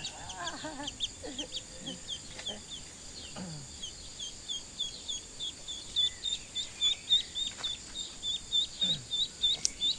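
A bird peeping over and over in short, high, falling notes, about three a second at first, then faster, louder and more regular from about six seconds in. There is a single sharp click near the end.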